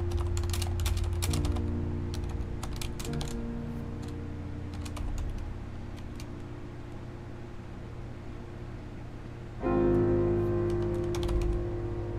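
Typing on a Corsair mechanical keyboard: bursts of quick key clicks, with a gap of several seconds after the middle, over background music that swells about ten seconds in.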